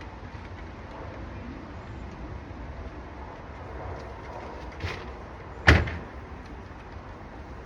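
A single sharp knock, like something hard shutting or hitting, about three quarters of the way through, with a smaller click just before it, over a steady low background rumble.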